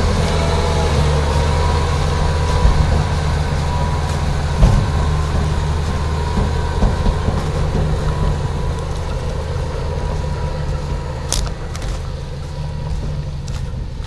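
Case IH tractor's diesel engine running steadily as it pulls a trailer over corn stubble, slowly fading as it moves off. A few sharp clicks near the end.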